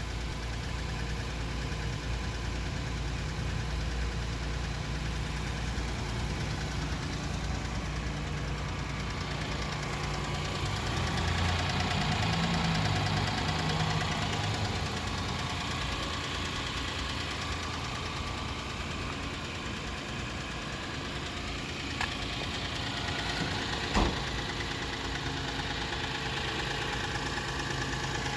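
Car diesel engine running steadily with a knock, getting a little louder and faster about a third of the way in before settling back. Two sharp clicks near the end.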